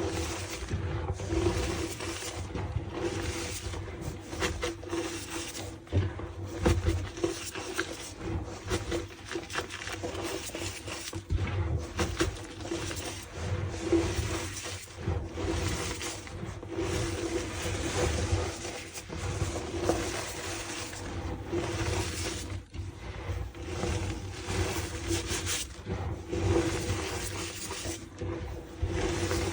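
Reformed gym chalk (a block re-pressed from chalk powder) being crushed and crumbled continuously, making dense crunching and crackling with a squeaky edge.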